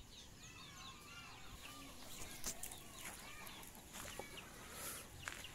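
Faint kampung chickens clucking and calling, many short overlapping calls, with a light click about two and a half seconds in.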